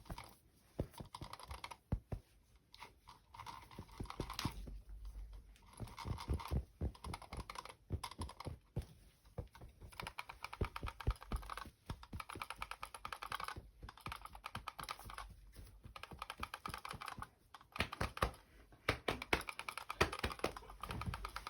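Rapid, irregular close-miked clicking and tapping, many small sharp strokes in quick succession.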